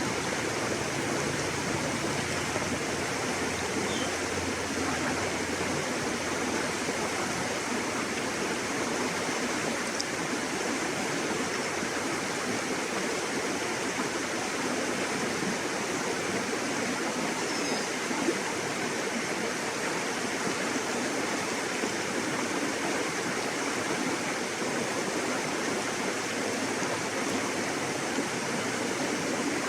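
River water flowing steadily, an even, unbroken rush of water.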